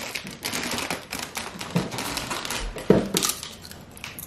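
Potato chip bag crinkling and rustling as a hand reaches in and pulls out chips: a run of sharp, uneven crackles, the loudest about three seconds in.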